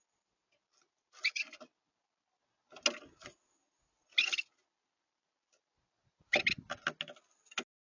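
Small birds at a feeder, pecking and scrabbling: four quick clusters of sharp taps and clicks with short pauses between them.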